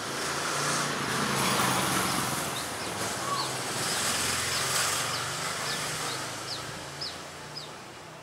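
A passing motor vehicle: a rush of noise with a low engine hum that swells and then fades away. Over it a small bird gives a series of short, high, falling chirps, a little under two a second, from about two and a half seconds in.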